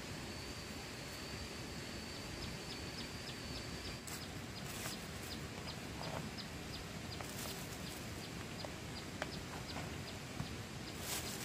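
A plastic spoon scooping rice from a plastic tub and a plastic bag crinkling, heard as a few brief scrapes and rustles over a steady outdoor hiss. Through it runs a high, thin ticking call repeated about three times a second.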